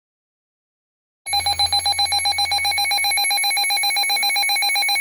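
Emergency Alert System alert signal: loud electronic tones that start abruptly about a second in and go on as a fast, even, buzzing warble of several fixed pitches, like a ringing alarm.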